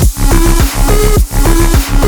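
Loud electronic dance music with a heavy, pulsing bass beat and repeating synth notes.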